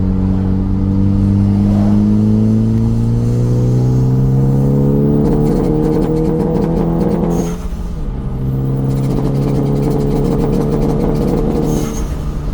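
2014 Hyundai Veloster Turbo's turbocharged 1.6-litre four-cylinder engine, with freshly fitted ignition coils for a misfire, pulling as the car accelerates, its note climbing steadily. About eight seconds in the pitch and level drop briefly, then the engine runs on steadily at a lower note.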